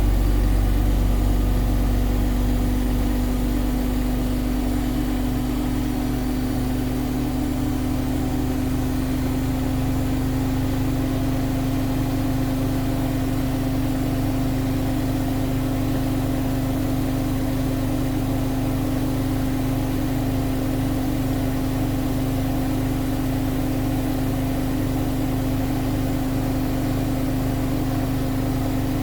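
Siemens Siwamat IQ 716 washing machine running at a steady speed, with a constant humming tone over a low rumble. The rumble is heavier at first and settles within the first few seconds.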